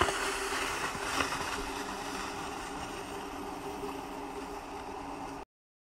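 Sled sliding off over snow: a hissing rush that is loudest at the start and slowly fades, then drops out abruptly near the end.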